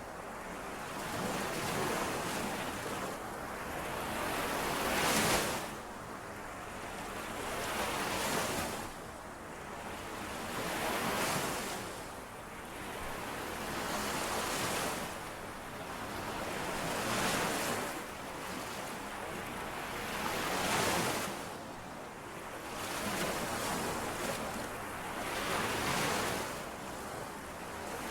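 Small lake waves washing in and out on the shore, one after another about every three seconds, each a rising and falling rush.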